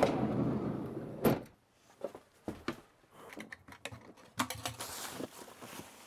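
Van sliding side door rolling open along its track and stopping with a loud thunk about a second in, followed by scattered knocks and clicks.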